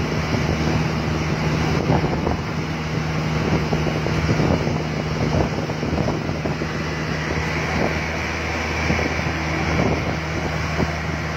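Three-wheeled electric loader rickshaw driven over rough dirt: its steel flatbed and frame clatter over a steady low hum, with wind buffeting the microphone.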